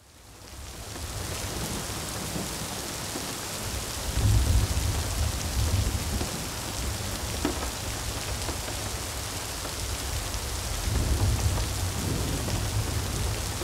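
Steady rain that fades in over the first second, with low rumbles of thunder swelling about four seconds in and again near eleven seconds.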